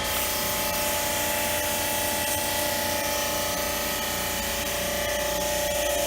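Electric air-conditioner washing pump running steadily, its motor whining over the hiss of a water spray jet.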